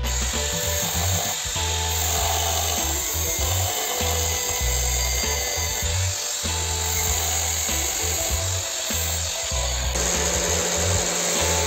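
Background music with a pulsing bass beat, over the steady high whine of an electric angle grinder running on steel.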